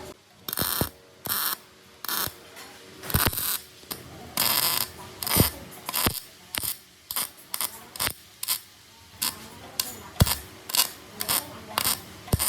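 Hand-tool work: an irregular run of short rasping strokes mixed with sharp clicks and a few hard knocks.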